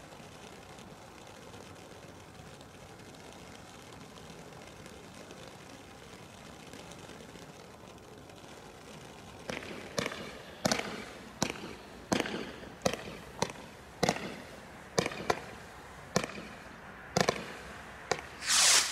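Consumer fireworks from a Bright Star selection box: a fountain hissing steadily, then from about halfway a quick series of a dozen or so sharp bangs as a multi-shot firework fires shots into the air, roughly one every 0.6 s. The last bang, near the end, is the loudest and longest.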